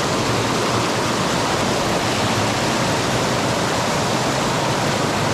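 Fast-flowing stream water rushing over rock: a loud, steady rush with no break.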